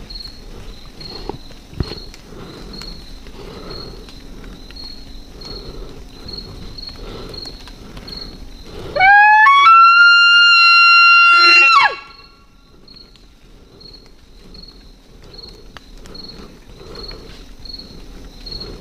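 A bull elk bugling: one loud call lasting about three seconds, beginning about nine seconds in. It climbs in pitch, holds a high note and drops off abruptly. Throughout, insects chirp in a steady, evenly pulsing rhythm.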